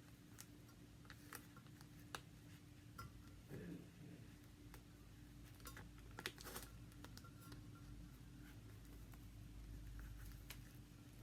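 Near silence over a faint steady hum, with scattered light taps and clicks of small items being handled and pressed onto a cup.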